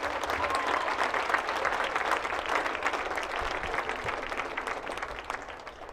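Audience applauding, a dense patter of many hands clapping that fades down near the end.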